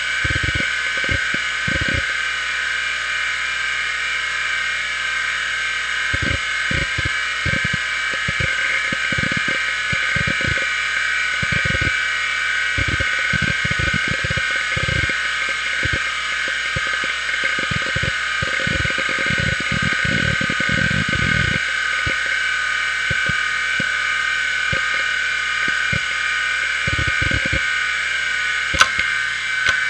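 Maxtor XT-8380S 5.25-inch full-height SCSI hard drive spinning with a steady high whine, its heads seeking in irregular clusters of short low clicks and thuds as it reads data while Windows 95 loads. The seeking is busiest in a dense run a little after halfway, and one sharp click comes near the end.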